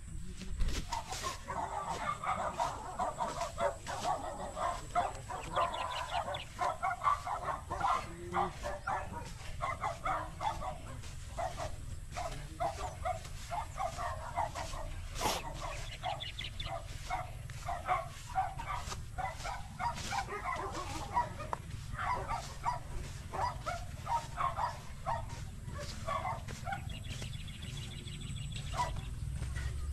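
Short, repeated animal calls that keep up through the whole stretch, with scattered clicks.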